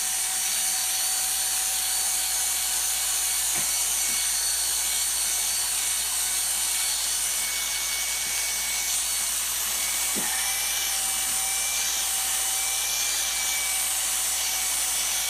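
Corded electric dog-grooming clippers running steadily with an even, high-pitched hum as they are worked through a miniature schnauzer's coat.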